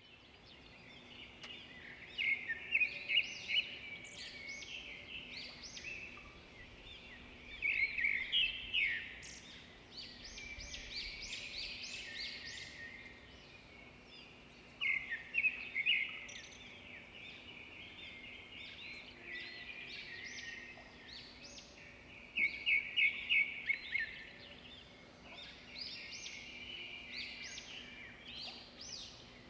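Small birds chirping and twittering, with a loud run of quick, sharp repeated notes every few seconds over a faint steady hum.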